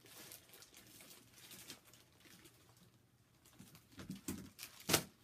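Faint rustling and small clicks of hands handling cross-stitch kits and their packaging, busier near the end, where one sharp knock stands out.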